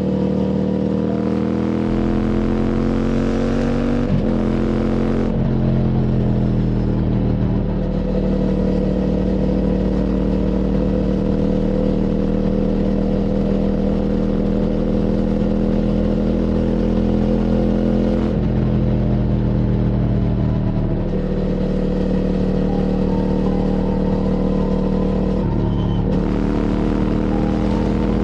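QJ Motors SVT650X's parallel-twin engine through an Arrow Racetech slip-on exhaust, under way. Its pitch rises under acceleration, drops at a gear change about four seconds in, then holds steady for a long stretch, with further changes in revs later on.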